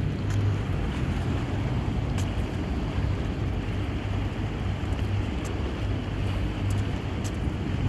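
Low, steady hum of a boat engine across the harbour water, swelling and fading a little, under wind rushing on the microphone.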